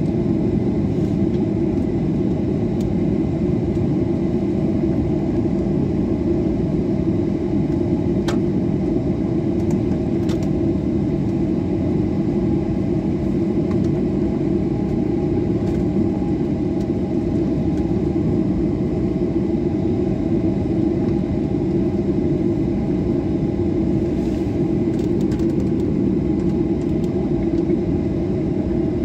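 Cabin sound of a Boeing 737-800 taxiing, its CFM56-7B engines and the airframe giving a steady, even rumble.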